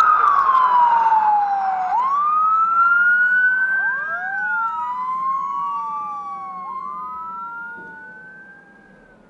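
Emergency vehicle siren in a slow wail, its pitch sweeping up and down over a couple of seconds at a time. A second wailing siren overlaps from about four seconds in, and both fade away near the end.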